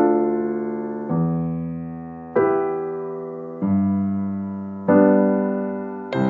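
Slow electric piano music: sustained chords struck about once every second and a quarter, each fading slowly before the next.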